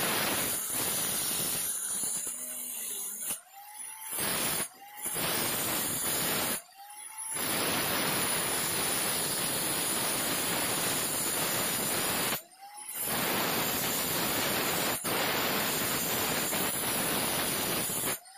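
Angle grinder with a masonry cutting disc cutting a groove into a brick wall: a steady grinding noise. It breaks off about four times for a moment as the disc leaves the wall, and each time the motor's whine swings up in pitch before the grinding resumes.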